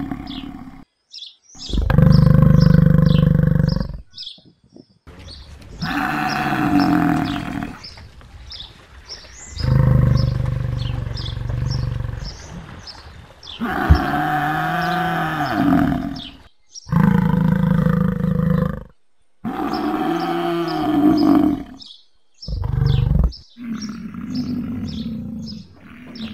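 African buffalo bellowing: a series of about eight long, low calls, each a second or two long, separated by short pauses, some rising and falling in pitch. Birds chirp throughout.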